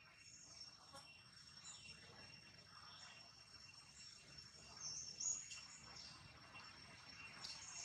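Faint outdoor ambience: a steady high-pitched insect drone, with a few brief high chirps, the loudest about five seconds in.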